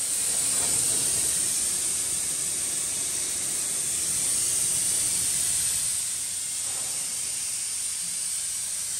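Steady hiss of air blowing from a ventilation or compressed-air hose inside a ship's hull compartment, used to cool the work space in the heat.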